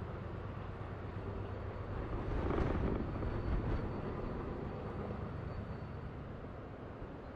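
Distant freight train's diesel locomotives rumbling along the canyon: a steady low drone that swells louder about two and a half seconds in, then eases off.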